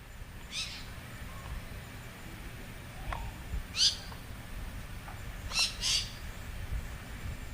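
A bird giving short, high calls: one about half a second in, one near four seconds, and two in quick succession near six seconds, over a low steady rumble.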